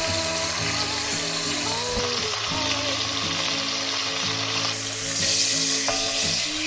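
Chicken drumsticks sizzling steadily in hot sesame oil with ginger in a cast-iron pot, turned with a wooden spatula: the skin is being seared until lightly coloured.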